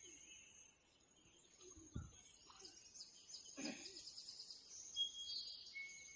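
Faint outdoor ambience with small birds chirping and trilling on and off, and a soft knock about two seconds in.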